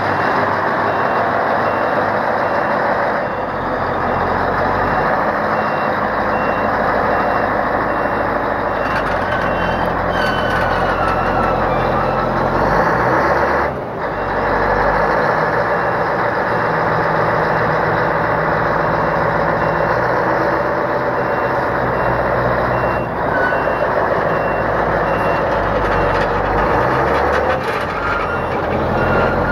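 Moxy MT40 articulated dump truck's diesel engine running steadily, with its reversing alarm beeping over it in an even, repeated on-off pattern.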